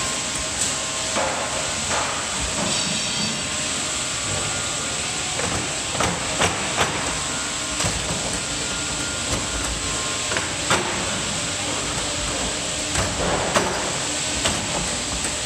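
Barrel hooping machine pressing steel hoops down onto an oak barrel: a steady mechanical hiss with sharp metallic knocks every few seconds as the clamp arms drive the hoops.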